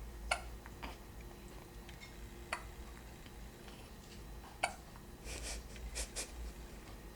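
A newborn baby hiccuping: short sharp hics roughly every two seconds, with a few softer snuffling noises near the end.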